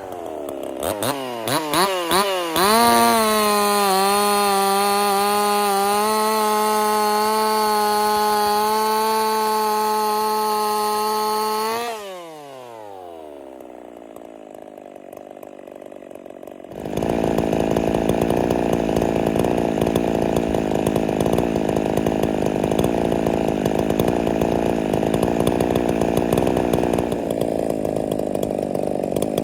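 Ported Husqvarna 50 two-stroke chainsaw blipped a few times, then held at full throttle for about nine seconds before its pitch falls back to a quieter idle. About 17 s in it suddenly runs loud and steady again with a rougher, noisier sound, cutting wood.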